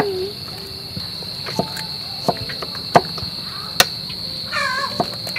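Steady chirring of crickets with about five scattered, sharp knocks from a knife cutting jackfruit on a wooden board and duck eggs being cracked into a bowl.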